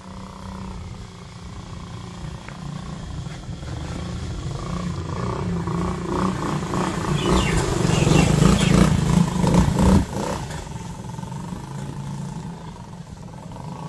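Small 50 cc single-cylinder four-stroke mini ATV engine running, growing louder to a peak about eight to ten seconds in, then dropping off suddenly.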